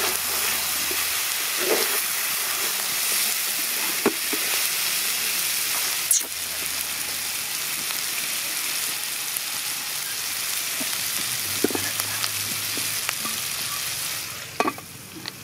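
Chicken pieces with coriander and mint leaves frying in a pot, a steady sizzle with occasional sharp pops. The sizzle drops away near the end.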